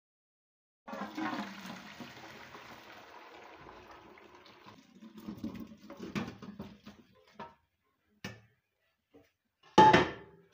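Chicken broth poured from a pot through a stainless steel colander: a gush of liquid starts about a second in and tapers off, then boiled chicken pieces slide and knock against the metal. A loud knock sounds near the end.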